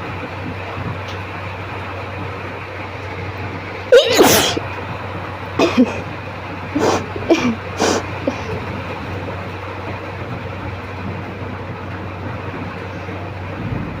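A person sneezes hard once, then makes a few shorter sneezes and sharp breaths over the next few seconds. The sneezes are set off by tickling inside the nose with a cotton bud.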